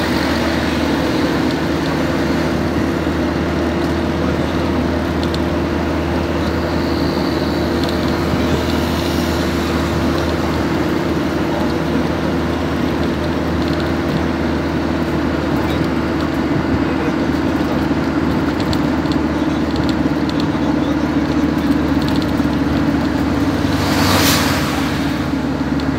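Cabin noise of a moving passenger van: a steady engine drone under road and wind noise, with a brief whoosh near the end.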